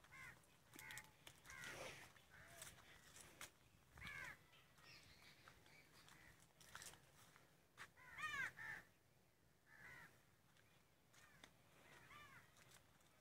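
Faint caws of crows, short arching calls repeated on and off, with the loudest run of calls about eight seconds in.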